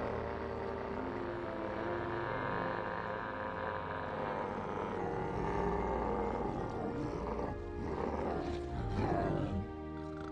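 Exaggerated cartoon snoring, deep and beast-like like an animal's roar, from a sleeping demon character, over background music.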